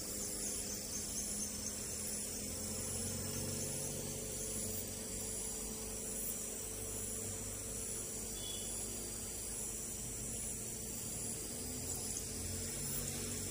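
Steady high-pitched trilling of insects such as crickets, over a low steady hum.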